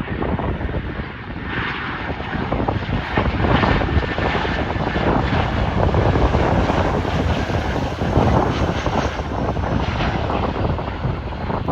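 Jet engines of an Airbus A320-family airliner passing on its landing approach: a loud, steady engine roar with a faint whine slowly falling in pitch.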